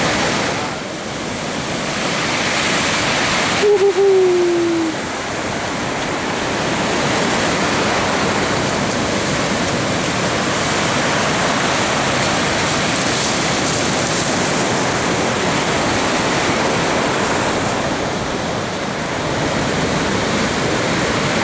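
Heavy ocean surf from a hurricane swell, a steady roar of breaking waves and whitewater. About four seconds in, a short falling tone cuts through briefly.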